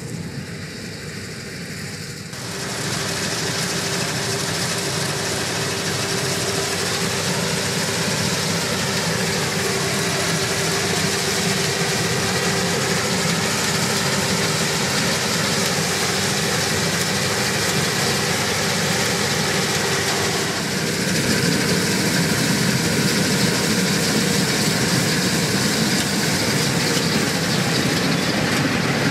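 Claas Lexion 760 combine harvester running under load while cutting and threshing a pea crop: a steady machine noise with a steady pitched note running through it. It gets louder about two seconds in.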